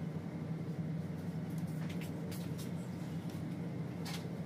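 A steady low hum, with a few faint clicks and light taps.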